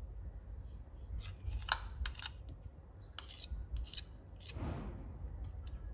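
Metal spoons stirring thick chickpea-flour batter in a glass bowl: a series of short clicks and scrapes of metal on glass, with one longer scrape a little before the end.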